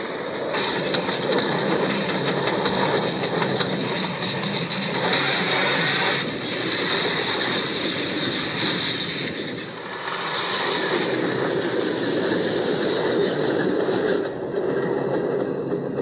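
Diesel locomotive moving through snow: a loud, steady rush of engine and rail noise, dipping briefly twice.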